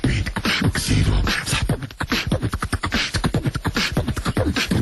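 Human beatboxing: a voice making rapid hip-hop drum beats and scratch-like sounds, dubbed as a DJ-ing chipmunk.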